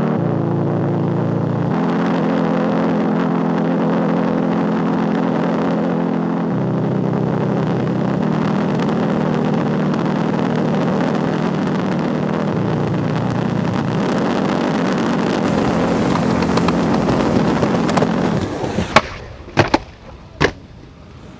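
A steady droning sound whose held notes shift in steps, which cuts out near the end. It is followed by a few sharp clacks of a skateboard hitting concrete as a skater does a trick on a ledge.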